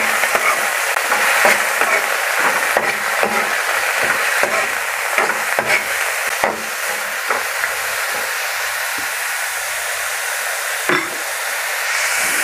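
Julienned carrots with onion and garlic sizzling in sesame oil in a nonstick pan as they are stirred, with scattered light knocks and scrapes of the spatula against the pan.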